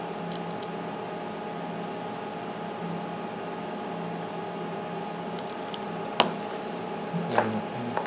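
Steady hum of workbench equipment, a fan-like drone with a few constant tones in it. A single sharp click about six seconds in and a brief clatter of small knocks near the end, as the soldering iron is taken away from the board.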